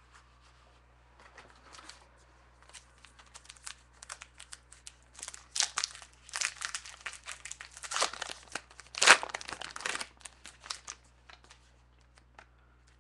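Wrapper of a 2012 Topps Gypsy Queen baseball card pack crinkling and tearing as it is opened by hand, starting a few seconds in, with the loudest rip about nine seconds in.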